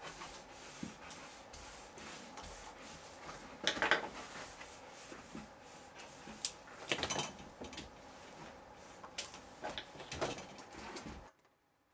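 Small clicks and handling clatter of hand-wiring work: a wire stripper closing on a twisted cloth lamp cord and a small plastic inline switch being handled. The sound cuts off suddenly near the end.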